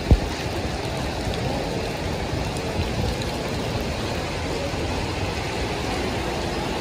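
Heavy rain pouring steadily on a wet road, with car engines running in slow traffic underneath. A single sharp thump comes just after the start.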